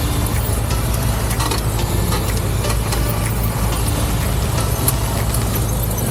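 Cessna 172 Skyhawk's piston engine and propeller running steadily at low power on the ground, a constant low drone.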